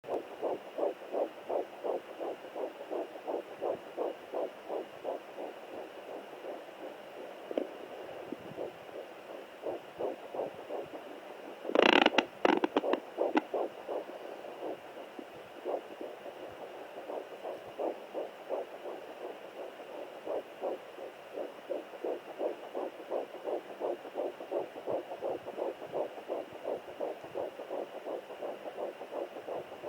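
Home fetal Doppler's speaker playing a 9-week fetal heartbeat: a fast, rhythmic whooshing pulse at about three beats a second. A loud crackling burst breaks in about twelve seconds in.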